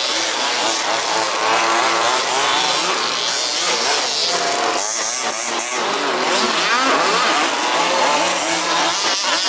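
Several 1/5-scale RC buggies' small two-stroke petrol engines racing around the track, overlapping, their pitch rising and falling as they accelerate and back off.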